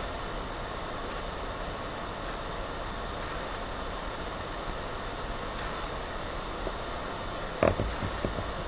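Steady background hiss with a faint high electronic whine, as picked up by a webcam microphone. About seven and a half seconds in comes a sudden knock, followed by two or three softer bumps, as someone moves up close to the camera.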